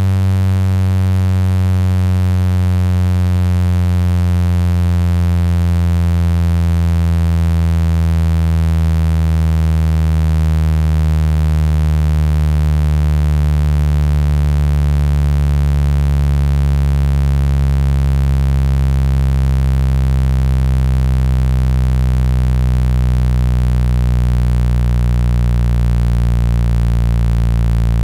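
Low, buzzing synthetic tone played to shake water out of a phone speaker, rich in overtones and slowly falling in pitch.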